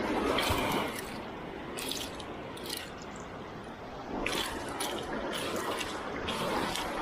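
Sea water splashing and sloshing in irregular bursts every second or two.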